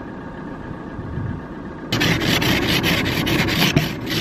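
Plastic ice scraper scraping frost off a car windscreen in quick, rough strokes, about six a second. The strokes start suddenly about two seconds in.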